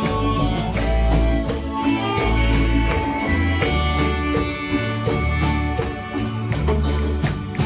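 Instrumental music with a guitar and a steady bass line, playing continuously.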